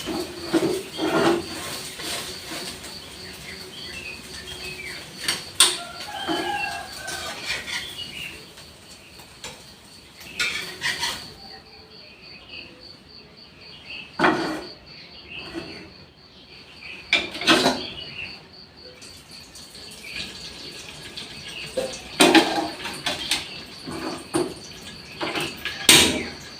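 Metal kitchen utensils and cookware clinking and knocking at irregular intervals, with a handful of louder clanks among lighter clinks.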